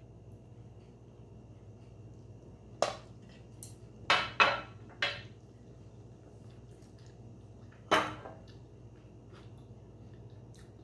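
A handful of sharp clinks and knocks from wooden chopsticks and tableware, about five in all, three of them close together around four to five seconds in, over a low steady hum.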